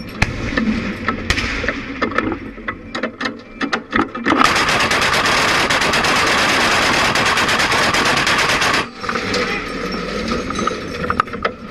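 Gunfire from a ZSU-23-4's four 23 mm autocannons. Scattered shots give way, about four seconds in, to one solid burst of some four and a half seconds in which the shots run together into a continuous noise, and it cuts off suddenly. More scattered shots follow.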